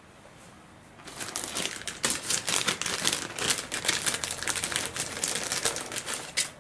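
Crinkling and rustling of a small plastic parts bag being handled, continuous from about a second in, as a sprue of plastic servo arms is fished out of it.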